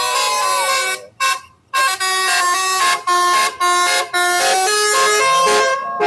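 Telolet basuri bus horn, a multi-tone electric horn, playing a melody in stepping notes, broken by short pauses.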